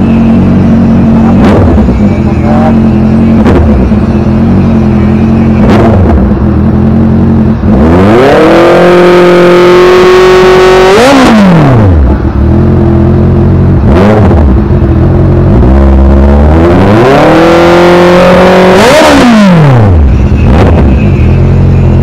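Honda CB650's inline-four engine running through a freshly fitted Villain R11 aftermarket muffler for a sound test: idling with several quick throttle blips, and two longer revs about eight and sixteen seconds in that each climb, hold high for a second or two, then fall back to idle.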